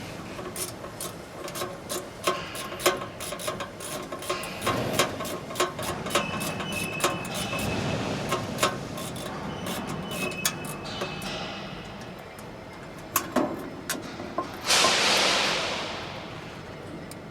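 Irregular clinks and knocks of steel hand tools against the steel parts of a press brake's ram and hydraulic valve assembly as screws are worked loose, with a few brief metallic rings. About fifteen seconds in, a loud hiss lasts about a second and a half and fades away.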